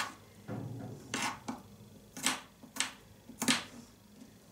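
Small kitchen knife cutting garlic cloves: a handful of separate, unevenly spaced cuts.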